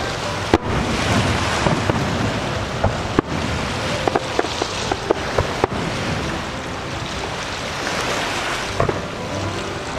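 Aerial fireworks going off: a continuous crackle and rumble of bursting shells, with sharp bangs about half a second in, at about three seconds and near six seconds.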